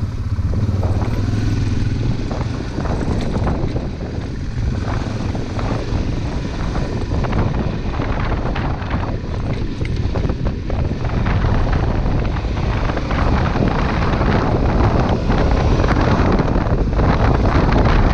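Honda Transalp 600's V-twin engine running under way, mixed with heavy wind buffeting on the microphone and the rattle and crunch of tyres over a gravel track. It gets a little louder in the second half.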